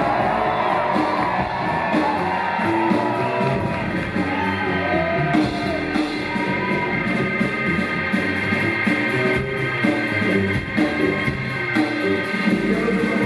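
Live rock band playing an instrumental stretch of a song with a steady beat; sliding pitches rise and fall through the first few seconds.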